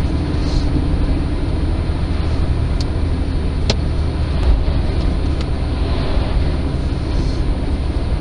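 Steady road and engine noise of a moving car, heard from inside the cabin: a constant deep rumble, with one sharp click a little under four seconds in.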